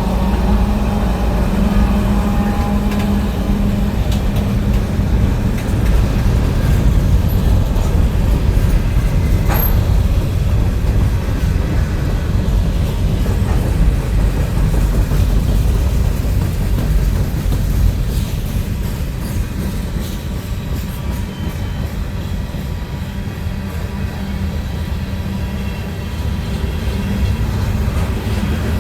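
Long CN freight train rolling past close by: a steady, loud rumble and clatter of steel wheels on the rails.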